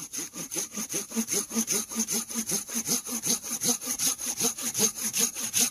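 Hand saw cutting through wood in fast, even back-and-forth strokes, about five a second.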